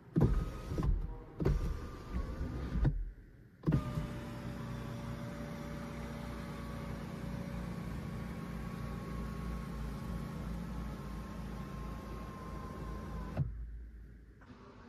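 Electric sunshade motor of a Geely Xingrui's panoramic sunroof. After a few short starts in the first three seconds, it runs steadily with a hum and a faint whine for about ten seconds, then stops with a soft thump as the shade reaches the end of its travel.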